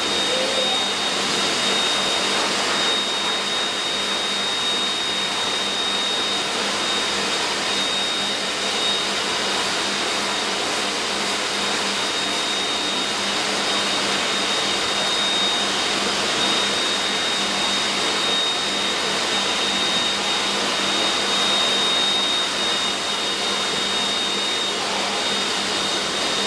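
Electric dog-grooming machine running steadily: a constant rush of air from its motor with a thin high whine held throughout.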